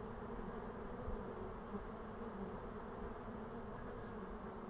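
Honeybees buzzing around an open hive, a steady unbroken hum.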